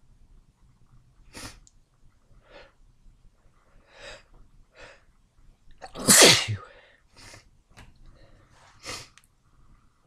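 A run of short, wet sneezes. The loudest and longest comes about six seconds in, with a falling voice in it; the others are shorter and quieter.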